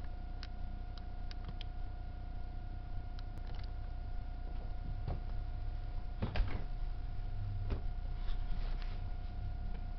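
Model train running on its track: a steady low rumble and an even motor hum, with scattered clicks and a louder clatter about six seconds in.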